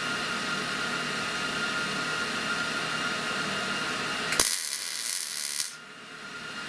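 Steady workshop hum, then about four and a half seconds in a short burst of crackling hiss from a welder laying a spot weld on the sheet-metal patch panel, lasting just over a second and cutting off suddenly.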